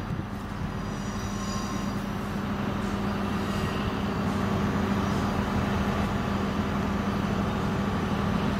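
TCDD DE 22000 diesel locomotive running as it slowly approaches, a steady engine drone that grows a little louder about halfway through as it comes closer.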